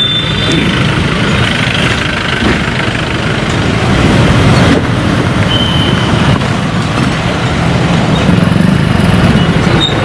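Police vehicles, a jeep and an SUV, driving up and pulling in on a road, with steady engine and tyre noise.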